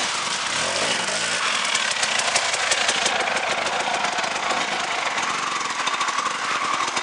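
Off-road dirt bike engine running as the bike rides through a shallow rocky creek, with water splashing around the wheels.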